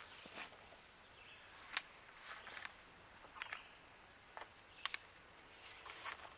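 Faint, scattered clicks and scuffs from handling a PVC pipe while electrical wire is fed into its end. The sharpest click comes about two seconds in.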